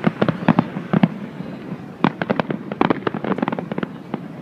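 Fireworks display going off in rapid, irregular bangs and crackles, with a dense volley about two seconds in.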